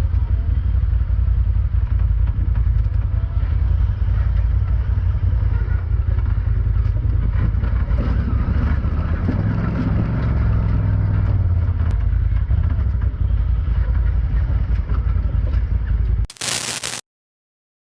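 Honda Talon 1000R side-by-side being driven on rough trail: a steady, loud engine and drivetrain rumble with rattling and scraping. It ends in a brief loud burst and cuts off abruptly near the end.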